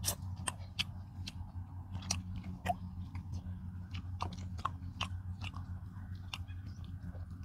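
People chewing and smacking their lips while eating rice with fish and curry, a steady run of short, wet mouth clicks and smacks. A steady low hum runs underneath.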